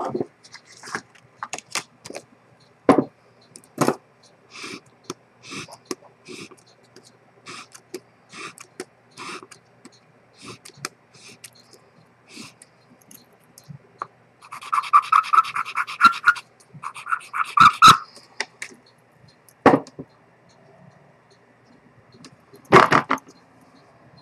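Small sharp clicks and taps of metal tools and fingers handling a vintage Rolex watch movement, spaced irregularly, with a few louder knocks. Around the middle come two bursts of rapid, ringing clicking, each about a second and a half long.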